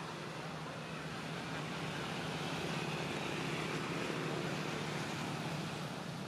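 Steady rumble of a vehicle engine with a low hum, growing a little louder around the middle and easing off near the end.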